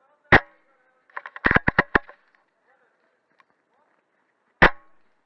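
Airsoft gunfire in woodland: a single sharp shot about a third of a second in, a quick burst of about five shots around a second and a half in, and another single sharp shot near the end.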